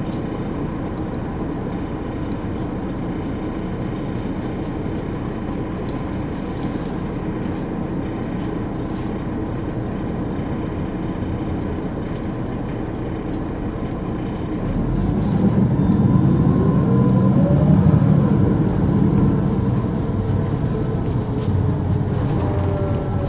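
Volvo 8700LE bus with a Volvo D7E diesel and ZF Ecomat 6HP554N automatic gearbox, running steadily with a thin steady whine. About fifteen seconds in it gets louder as it accelerates, with rising whines from the turbo and gearbox.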